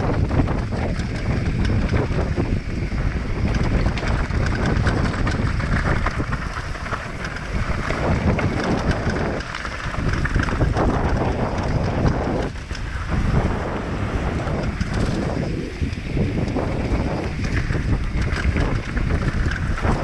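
Wind buffeting a camera microphone carried on a mountain bike riding down a trail: a continuous loud rushing roar that dips briefly a few times.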